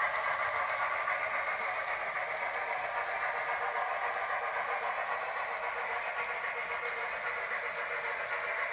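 HO scale model steam locomotive running, its ESU sound decoder playing steam sounds through a tiny speaker: a steady rushing hiss, thin and without bass.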